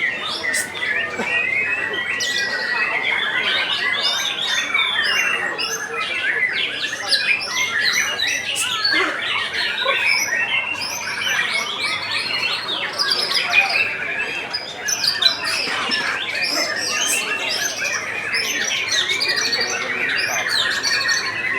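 Many white-rumped shamas (murai batu) singing at once, a dense, unbroken chorus of overlapping whistled phrases and trills.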